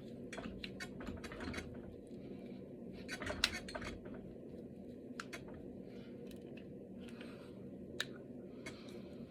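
Finger joints and knuckles being cracked: a scattering of short, sharp pops, bunched most thickly about three seconds in where the loudest one falls, with another single sharp pop near the end.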